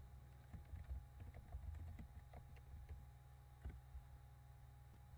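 Faint typing on a computer keyboard: a run of irregular key clicks as a search query is typed, ending with a stronger key press a little before four seconds in. A steady low hum sits underneath.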